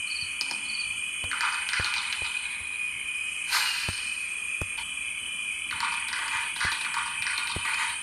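Insects chirring steadily in high tones, with bursts of hissing crackle about a second in, briefly near the middle, and again through the last couple of seconds.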